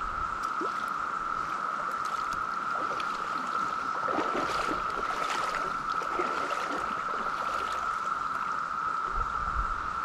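Steady high-pitched drone of a Brood X periodical cicada chorus, with water splashing and gurgling around a hand in a stream from about four to six seconds in as a fish is released.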